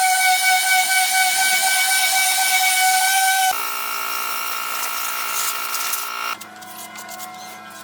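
Steady whine of a power tool's motor over a hiss, switching abruptly to a different, quieter pitch about three and a half seconds in and again just after six seconds.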